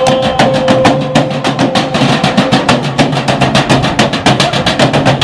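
Three drummers beating galvanized metal trash cans with drumsticks in a fast, even rhythm, about eight strikes a second. A steady ringing tone sounds under the drumming for the first half or so.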